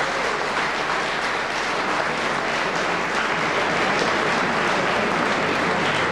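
Crowd applauding steadily, a dense even clatter of many hands clapping.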